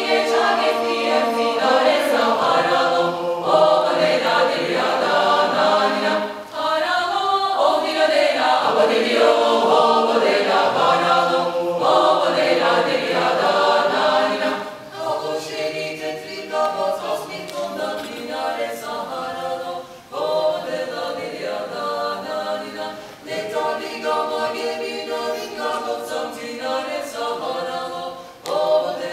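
Mixed choir of men's and women's voices singing a cappella in several-part polyphony, growing softer from about halfway through.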